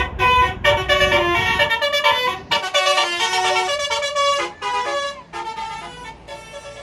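A bus's basuri telolet musical horn playing a tune of quick notes stepping up and down, with the bus engine rumbling underneath for the first two seconds. The tune grows fainter toward the end.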